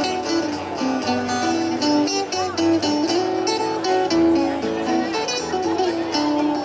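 Old-time string band playing a tune: plucked strings under a held, sustained melody line, with no break in the music.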